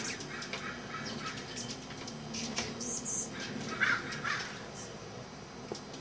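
A crowd of hummingbirds chittering and chipping around their feeders: a dense run of rapid, high, squeaky chips and chatters, with a couple of louder, harsher calls about four seconds in.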